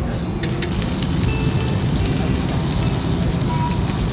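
Lobster sizzling on a hot teppanyaki iron griddle, a steady dense hiss with a few light clicks near the start.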